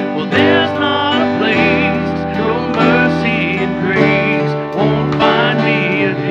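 A live worship band: men singing a contemporary worship song over strummed acoustic guitar and keyboard, the voices holding long, wavering notes.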